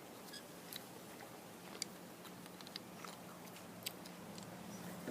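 Faint, scattered clicks and light taps, about five over a few seconds, from small plastic door-handle parts being handled.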